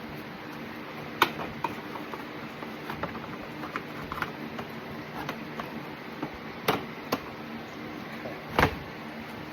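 Scattered plastic clicks and knocks as the electric radiator cooling fan and its shroud are worked free and lifted out of the engine bay, with a sharper knock about a second in and louder knocks near the end.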